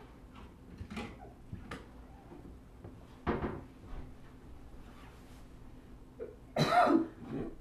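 Household kitchen sounds: scattered knocks and clicks like cupboard doors and dishes being handled, with a louder sound under a second long near the end.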